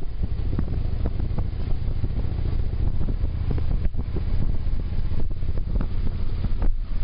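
Harley-Davidson V-twin motorcycle engine running at road speed with a steady low rumble, heavily buffeted by wind on the microphone.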